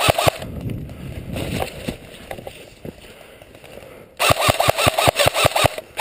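Airsoft rifle firing full-auto at about ten shots a second: a burst that stops just after the start, then a longer burst of about a second and a half near the end. In between come quieter rustling and movement sounds.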